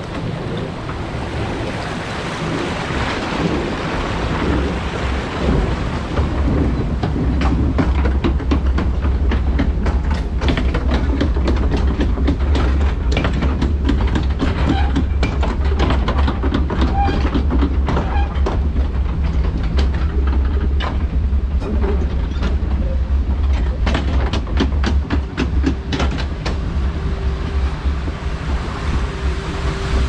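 Log flume boat being hauled up the lift hill by its conveyor chain: a steady low rumble with rapid, uneven clacking and rattling from the chain. Water rushes in the trough for the first few seconds, before the climb begins.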